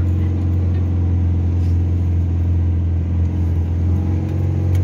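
Isuzu 3-litre turbodiesel engine heard from inside the cab, a steady low drone as the pickup pulls through thick sand, the pitch rising slightly near the end.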